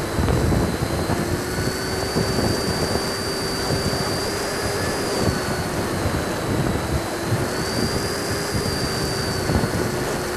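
70 mm electric ducted fan of a Freewing Hawk RC jet whining steadily at low approach throttle. Its pitch lifts slightly and settles back twice, over heavy wind rush and buffeting on the onboard microphone.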